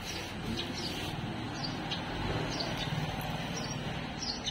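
Small birds chirping in short high notes every second or so, over a steady background rumble.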